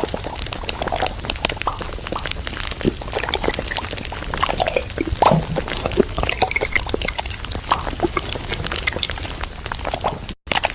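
Groceries being handled and put away in a fridge: many small clicks, knocks and rustles. The sound cuts out briefly near the end.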